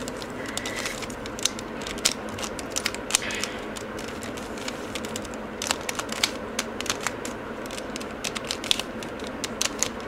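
Plastic mirror cube being turned by hand: irregular clicks and clacks as its layers are twisted and snap into place, over a steady background hiss.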